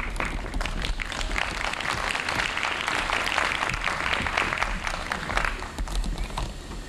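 Audience applauding, dense in the middle and dying away to a few scattered claps about five and a half seconds in.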